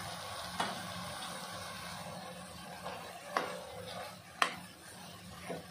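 Steel spatula stirring chopped ridge gourd in an aluminium pot, with four sharp clinks of the spatula against the pot over a steady low hiss.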